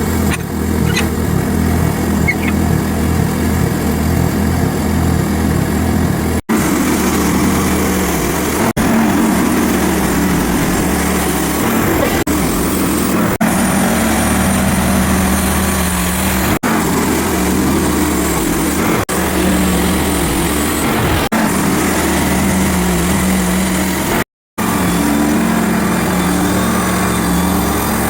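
Small gasoline engine of a portable band sawmill running steadily as the blade cuts through a hard ash log. The sound is spliced from several short takes, so it breaks off abruptly and resumes with a slightly different pitch, and there is a brief dropout near the end.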